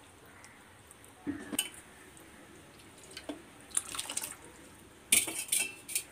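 Quiet scattered pops and clicks from a kadai of freshly poured dal, then about five seconds in a metal ladle scrapes and clinks against the pan as stirring begins.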